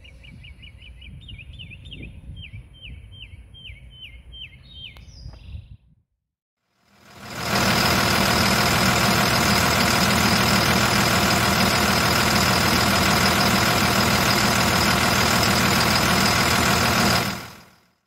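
A bird chirping in a quick repeated series, about three chirps a second, over a low rumble. After a short gap comes a Cummins 5.9 24-valve diesel engine running steadily, fading in and out, and this is the loudest sound.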